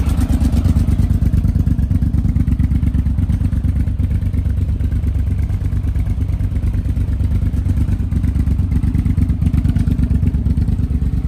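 Yamaha TRX 850's parallel-twin engine idling steadily through aftermarket Scorpion silencers, a deep, evenly pulsing exhaust note. The engine has an intermittent rattle that the owner suspects comes from a fault in the timing.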